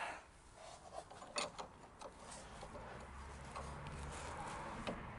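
Hand tools working a suspension nut: a few sharp metallic clicks and some scraping of a spanner and Allen key, with a faint low rumble building from about halfway through.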